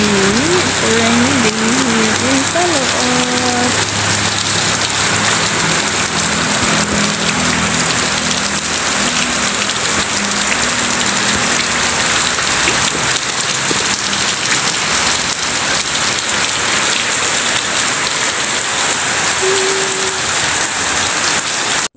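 Heavy rain falling steadily, a loud even hiss of rain on surfaces.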